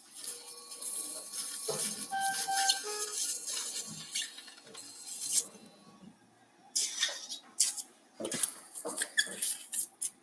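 Small hard objects clattering and rattling in a quick run of clicks as a drawer is rummaged through, with a few short ringing tones in the first three seconds and sparser clicking later.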